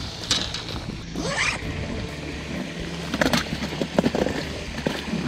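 A soft-sided cooler bag and fishing gear being handled on a steel mesh grate: a few separate bursts of rustling, scraping and knocking, over a steady low hum.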